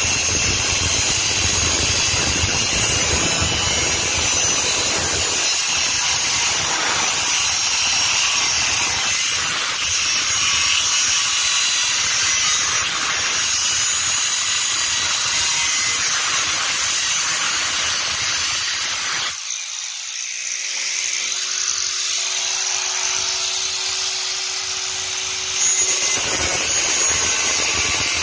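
Angle grinder with a cut-off disc cutting into the steel shell of an empty refrigerant cylinder, running steadily under load. For about six seconds past the middle the sound thins to a steadier whine before the full cutting noise returns.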